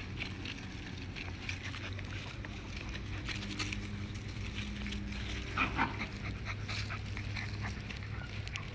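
Pembroke Welsh corgi puppies making small sounds, with one short, higher-pitched cry a little past halfway, over a steady low hum.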